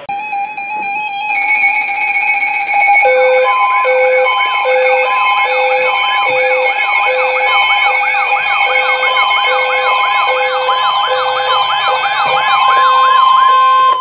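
Several NOAA weather radios, a Midland among them, sounding their warning alarms at once: steady overlapping tones, an on-off beep a little over once a second, and a fast warbling siren-like alert that joins about three seconds in. The alarms mark a severe thunderstorm warning coming in.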